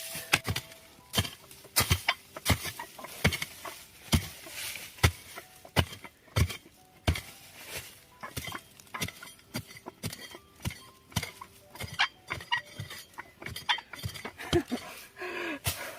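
A hoe chopping into soil to dig out a bamboo shoot: a string of sharp, irregular strikes, about one a second.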